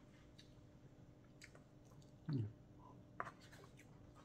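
Quiet chewing of a mouthful, with a fork scraping and clicking against the bottom of a takeout food bowl. A short low hum from the eater comes a little over two seconds in.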